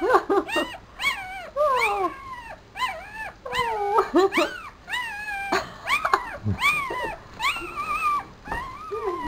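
Newborn papillon puppy crying: a steady run of high, squeaky whimpers and squeals, one or two a second, each rising then falling in pitch.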